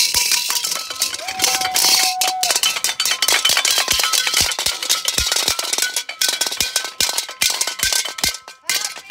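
An aluminium colander being struck over and over, rapid irregular metallic clanging with short ringing tones after the hits: New Year's noisemaking.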